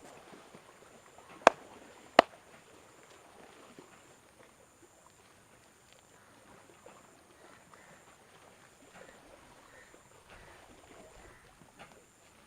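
Two loud, sharp cracks from the barber's hands on skin during a head massage, about two-thirds of a second apart, over faint rustling of hands working on hair and skin.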